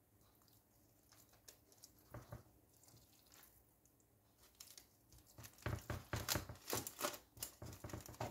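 Faint crinkling of parchment paper and soft squishing as a gloved hand presses clumps of grated cooked apple into a paper-lined baking tin. The crackling is sparse at first and busiest in the last few seconds.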